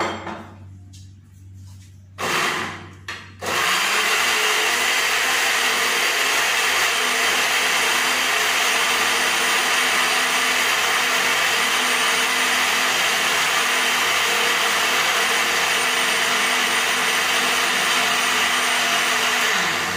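Electric countertop blender pureeing apple and pear with a little water. It gives a short pulse about two seconds in, then runs steadily for about sixteen seconds and stops just before the end.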